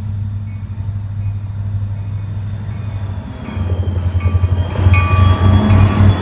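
Diesel locomotives of an approaching freight train: a low engine drone that swells and begins to throb about halfway through as the train draws closer. A bell dings at a steady pace throughout.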